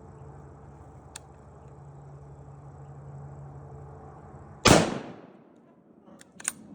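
A single loud hunting shot fired at a black bear, about two thirds of the way in, with a short echoing tail. A faint steady low hum comes before it, and a few small clicks follow near the end.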